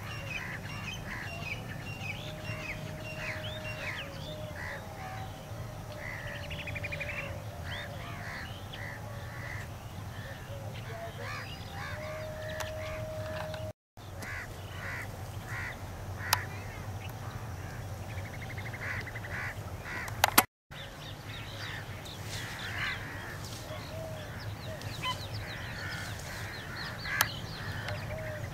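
Several birds calling: many short chirps and a few quick trills mixed with crow-like caws, over a steady low background rumble. A few sharp clicks stand out, and the sound drops out briefly twice, about 14 and 20 seconds in.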